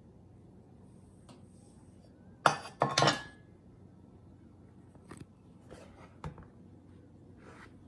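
Kitchen containers being handled on a countertop: a cluster of sharp clinks and knocks, some with a short ring, about two and a half to three seconds in, then a few lighter taps.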